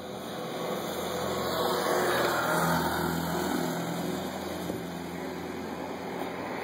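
Road traffic: a motor vehicle passing, its engine and tyre noise swelling to a peak about two to three seconds in and then fading, over a steady traffic hum.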